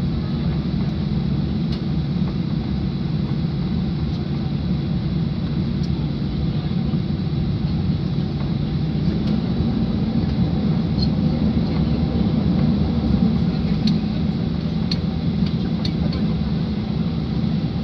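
Steady cabin rumble of a Boeing 737-800 taxiing, its CFM56-7B engines running at low thrust, heard from inside the cabin over the wing.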